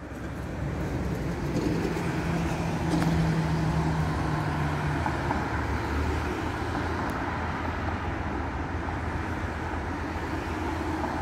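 A motor vehicle running close by: a low, steady hum that builds up over the first few seconds and then holds.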